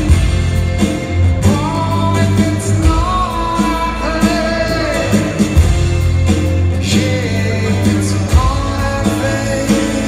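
A rock band playing live, a male lead singer singing over guitars, bass and drums.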